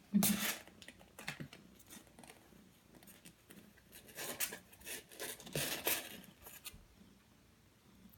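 Small kittens scratching and scrabbling on bedding as they play. The rustling comes in several bursts, loudest at the start and again about four to six seconds in, then dies away.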